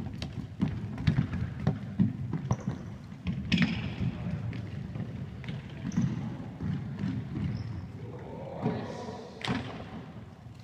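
Irregular thuds of a football being kicked and bouncing, mixed with players' running footsteps on a sports hall floor, echoing in the large hall.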